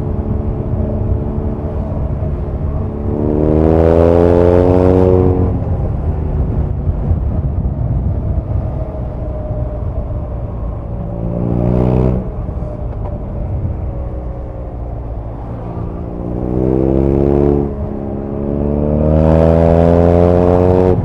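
BMW R nineT's air/oil-cooled boxer twin engine under way, running steadily and four times pulling hard with its note climbing, then dropping back as the throttle closes or the next gear goes in.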